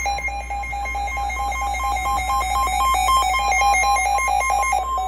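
Electronic alert tone from weather-radio alerting equipment between two warnings: a buzzy beeping that flips rapidly between a lower and a higher pitch, about eight beeps a second, like a warbling phone ringer. Near the end part of the pattern changes as one upper tone drops out.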